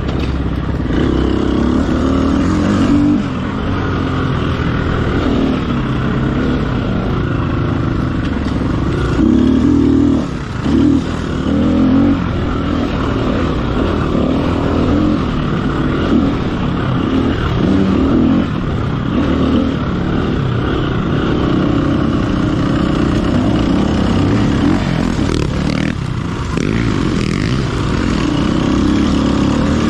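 Off-road dirt bike engine heard on board, running continuously and swelling and easing in pitch and level as the throttle is worked, with a brief drop about ten seconds in.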